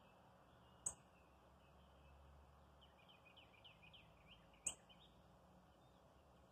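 Male northern cardinal giving two sharp, high single chip calls, about a second in and again near the five-second mark. Faint quick twittering from other small birds runs between them.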